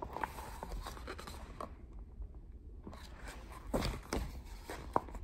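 Handling noise of a hardcover picture book being lowered and closed: soft rustling, with a few light knocks about four seconds in.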